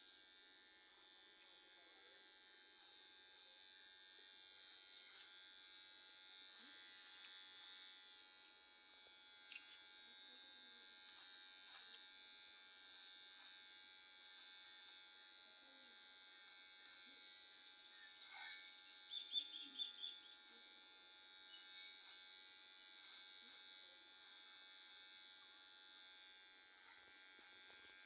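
Electric hair clipper buzzing faintly and steadily as it cuts hair, with a brief louder moment about two-thirds of the way through.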